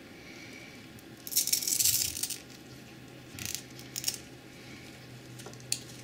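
Handling noise from a plastic webcam and its USB cable. There is a burst of rattling and rustling about a second in, two shorter rattles around three and four seconds, and a sharp click near the end.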